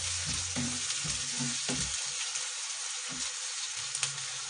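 Chopped onions and garlic sizzling as they fry in hot oil in a nonstick kadhai, with a few scrapes of a wooden spatula stirring them.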